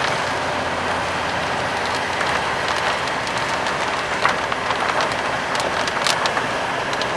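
Steady rushing noise of a car moving on the road, heard from inside the cabin, with scattered light ticks.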